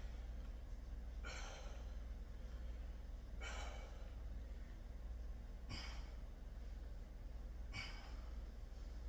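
A man breathing hard from exercise: four heavy breaths about two seconds apart, over a steady low hum.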